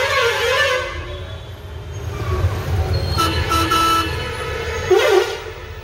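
Vehicle horns honking in a traffic jam over the low rumble of a truck's diesel engine heard inside the cab. A couple of short horn blasts come a little after the middle, and a louder blast comes near the end.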